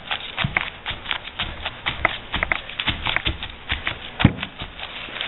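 Crumpled paper crinkling and dabbing against wet acrylic paint on a canvas: a dense run of irregular small crackles and taps, with one stronger tap about four seconds in. The paper is being pressed on and pulled off to lift paint and leave a crinkled texture.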